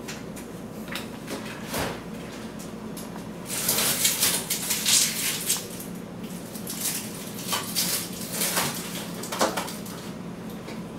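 Rummaging in an open refrigerator freezer compartment: frozen packages rustling and clattering, loudest for a couple of seconds starting a few seconds in, then a few scattered knocks and clicks.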